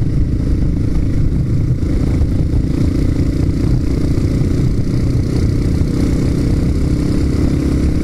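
Motorcycle engine running steadily at a moderate cruising speed, over a low rumble of wind and road noise.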